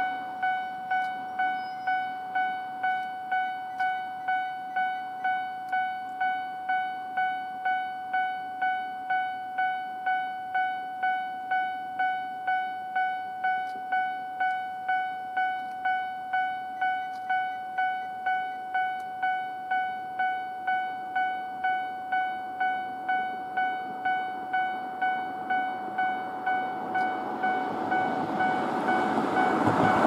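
Japanese railway level-crossing alarm ringing steadily, its electronic bell tone struck about three times every two seconds. Near the end, an approaching train grows louder.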